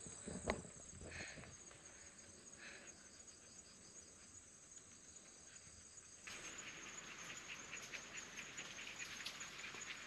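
Faint outdoor ambience: a steady high insect trill, with a few soft chirps. About six seconds in, it switches abruptly to a denser crackling, patter-like hiss.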